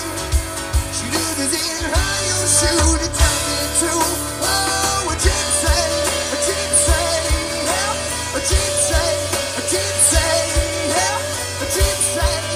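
Live country-rock band playing with fiddle, acoustic and electric guitars, and drums beating steadily underneath.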